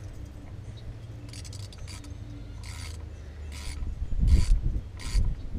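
Hand ratchet working a bolt at the alternator, a series of about five short rasping strokes that come roughly once a second and grow louder, the later ones with a dull knock, over a steady low rumble.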